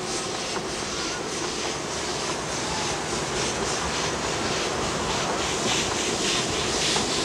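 Puffing Billy narrow-gauge steam locomotive working along the line, its exhaust chuffing in an even rhythm over the running rumble of the train, growing louder as it approaches.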